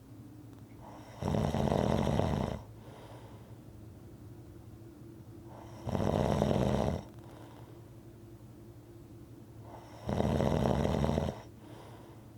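Rhythmic snoring: three loud snores, each about a second long, coming roughly every four seconds, with quieter breathing between them.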